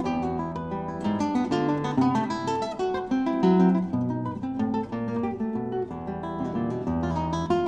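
Background music: acoustic guitar playing quick plucked and strummed notes.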